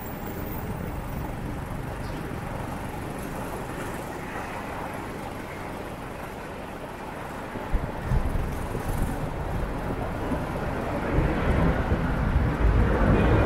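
Motorcycle on the move, heard as a steady rumble of engine, road and wind noise on the microphone, with a thud about eight seconds in and a heavier low rumble after it, louder again near the end.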